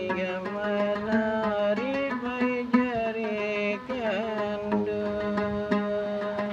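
A gambus, a plucked wooden lute, played in a steady pattern over a constant low note, with a man singing long held, wavering vocal lines that slide between pitches about two and four seconds in.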